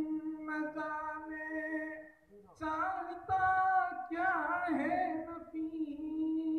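A man singing a verse of an Urdu ghazal unaccompanied, drawing the words out into long held notes with wavering ornamental turns. There is a brief break about two seconds in.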